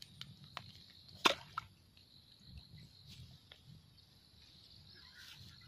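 Quiet outdoor ambience with a steady faint high hum, a few light clicks, and one sharp snap about a second in.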